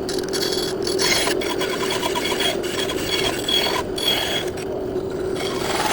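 Mini bandsaw running with a steady motor hum while its blade cuts wood, the cutting hiss coming and going as the piece is fed and turned.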